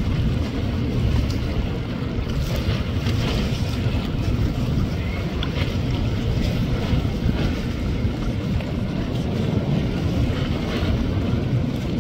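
Wind buffeting the microphone: a steady low rumble that flickers with the gusts, with a fainter hiss above it.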